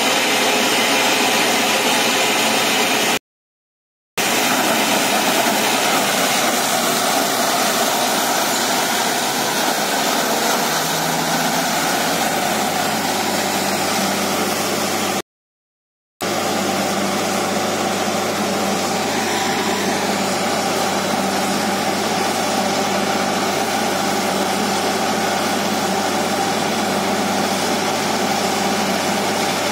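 Truck-mounted borewell drilling rig running steadily, its engine noise mixed with the rush of water and mud slurry being blown up out of the bore casing. The sound cuts out twice for about a second.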